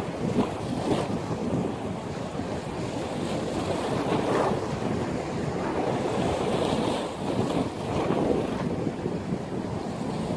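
Storm wind buffeting the microphone over breaking sea waves: a continuous rushing noise that swells twice, about four and eight seconds in.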